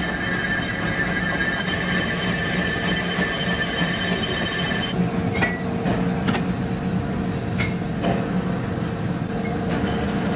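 Metalworking machinery running steadily with a low hum and a high, steady whine that cuts off abruptly about five seconds in; a few sharp metallic clicks follow in the second half.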